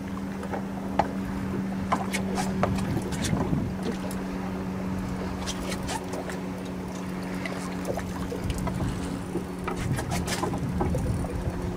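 Steady electric hum of a bow-mounted trolling motor running, with scattered light ticks over it.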